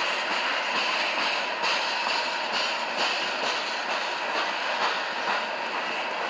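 CSX train cars rolling steadily past, wheels clicking now and then over rail joints.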